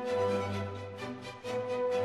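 Instrumental background music: held chords over a deep bass note, with the bass changing about a second and a half in.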